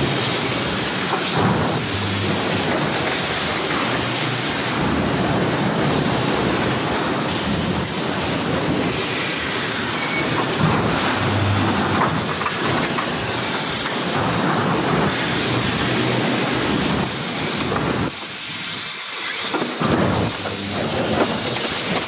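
Steady factory noise, an even rushing din from running machinery and fans in a wire-mesh panel welding plant, easing for a couple of seconds near the end.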